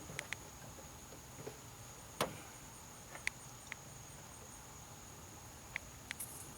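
Faint, scattered clicks and one sharper knock about two seconds in: hands working the hood latch of a 1990–93 Honda Accord to lift the hood.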